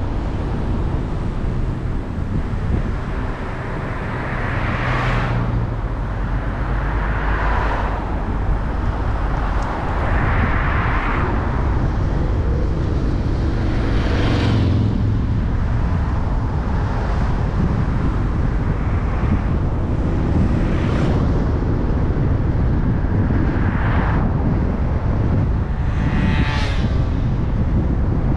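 A car driving on a road, with steady wind rumble on the microphone and tyre noise. About seven vehicles pass in the other direction, each a swelling and fading swoosh a few seconds apart. The last one, near the end, carries a short engine note.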